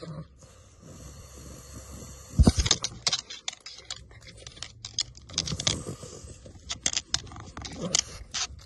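Dog nosing and sniffing at a cardboard toilet-roll tube held right at the microphone. It makes a jumble of irregular clicks, rattles and scuffs, with a hissy stretch in the first two seconds and one loud thump about two and a half seconds in.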